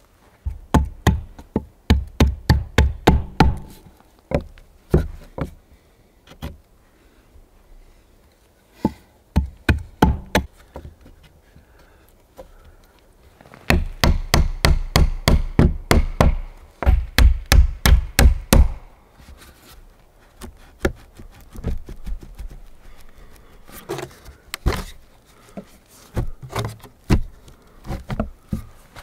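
Small steel hammer striking, fastening a wooden branch handle to a wooden plank door, in quick runs of blows about four or five a second, with pauses between the runs.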